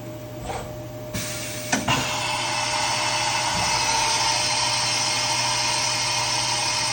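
Milltronics RH-20 CNC vertical mill running an automatic tool change. A sudden hiss sets in about a second in, then two sharp clunks come just under two seconds in, followed by a steady hissing whir with a faint whine.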